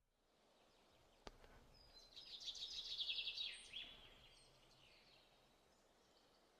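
Near silence: room tone, with a single faint click just over a second in and a faint high chirping trill lasting about a second and a half from about two seconds in.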